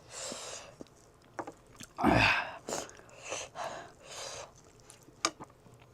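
Close-miked chewing and wet mouth sounds of a person eating rice with chicken curry, in irregular short bursts and clicks, with one louder, fuller sound about two seconds in.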